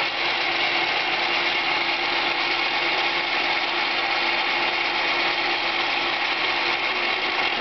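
Atlas QC54 metal lathe running loud and steady under a deep roughing cut, a carbide bit on power feed peeling chips off a steel shaft, with a steady hum over the hiss of the cut.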